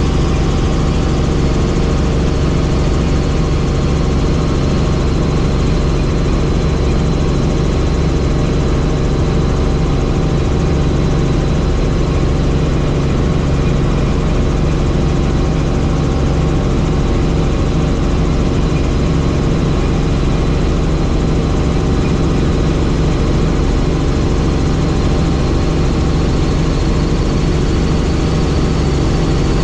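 Helicopter in flight: a steady, loud drone of engine and rotor, with several constant tones over a low rumble.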